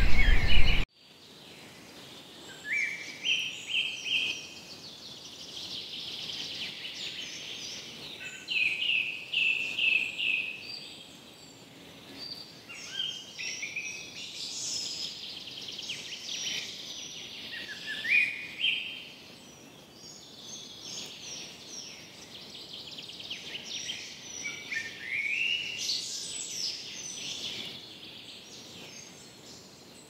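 A loud, noisy sound cuts off abruptly about a second in. Songbirds then sing in short repeated phrases of high chirps and quick rising notes, a few seconds apart, over a faint steady hiss.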